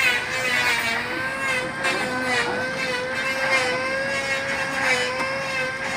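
Motorboat engine running steadily at a constant speed, its pitch wavering slightly.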